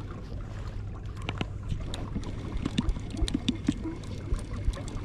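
Water lapping against a small fishing boat, with scattered light knocks and clicks over a steady low rumble.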